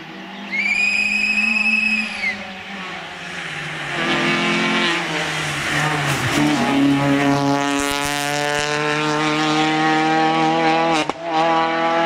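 Peugeot 206 rally car driven hard on a tarmac stage: a high tyre squeal for about two seconds as it takes a bend, then the engine note climbs and grows loud as the car comes up and passes close. A sharp brief break in the engine note about a second before the end, a gear change.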